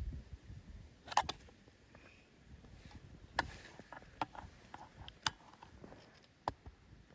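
Scattered sharp clicks and light taps a second or so apart, with a small cluster of them about a second in, over a faint background.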